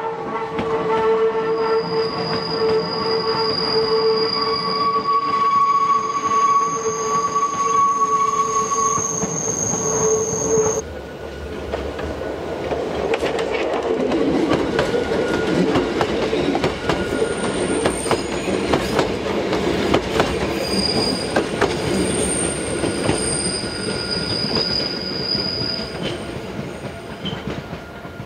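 Hakone Tozan Railway electric train running on a tight curve, its wheels squealing in several steady high tones. About eleven seconds in the squeal cuts off and the level drops suddenly, giving way to a rougher rumble of wheels on rail with fainter, intermittent high squeals.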